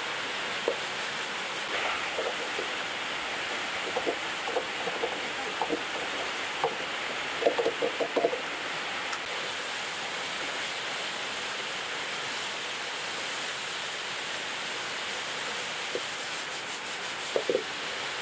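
Eel pieces frying in a wok with a steady sizzle, while a spatula stirs them, scraping and knocking against the pan in short runs, busiest a few seconds in and again near the end.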